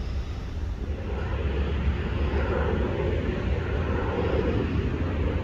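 Airplane flying over: a steady engine rumble that swells a little about a second in.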